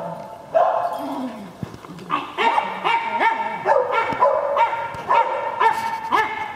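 A dog barking in a rapid series of short, high-pitched barks, about three a second from about two seconds in.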